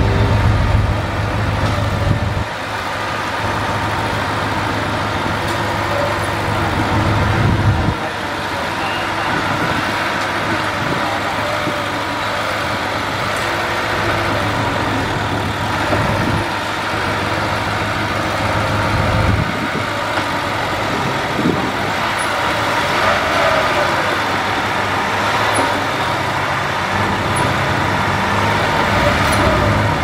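Diesel engine of a small crawler bulldozer working under load as it pushes a dump truck stuck in mud. Its deep engine note drops and returns several times as the load changes.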